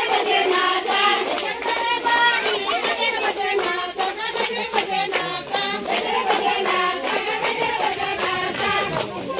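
Children singing a devotional song about Krishna together, with rhythmic hand claps keeping time.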